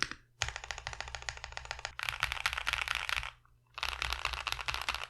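Mechanical keyboard fitted with factory-lubed Akko CS Wine Red linear switches, typed on fast: dense runs of keystrokes with a brief pause a little past the middle.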